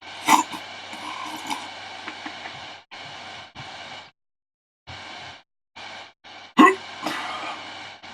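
A man breathing heavily through his mouth in bursts, with two sudden sharp gasps, one about a third of a second in and one about six and a half seconds in, as he suffers the burn of a freshly eaten Gator Jigsaw superhot chili pepper.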